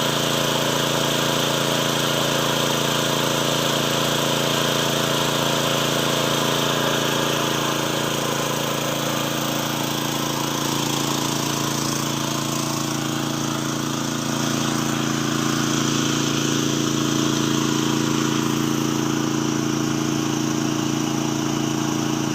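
Small engine running steadily, its pitch shifting slightly about halfway through.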